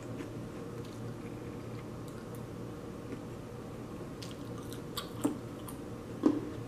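Close-miked chewing of a peeled cooked shrimp, soft and wet, with a few sharp clicks in the second half, the loudest about six seconds in, over a steady low hum.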